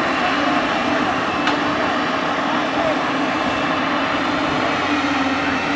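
Diesel engine of a JCB backhoe loader running steadily, a continuous loud drone with a steady hum.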